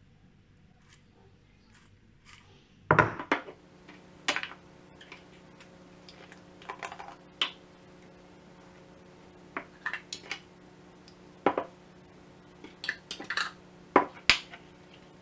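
Scattered knocks and clatter of kitchen items being handled: dried dates dropped into a blender cup, and a jar picked up and moved. These start about three seconds in, after a few faint clicks.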